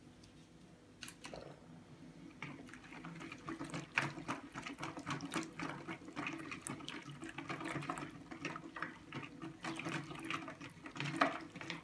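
A silicone-coated balloon whisk beating a runny yogurt batter in a bowl: quick wet sloshing with rapid light ticks, starting about a second in and getting busier soon after. Baking powder has just gone in with lemon juice and yogurt, and the batter is being whisked up until it foams.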